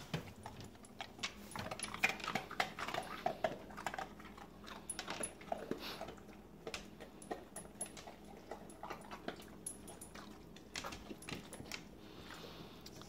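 Quiet dog sounds: a few short, soft whines and scattered small clicks of claws on a hardwood floor.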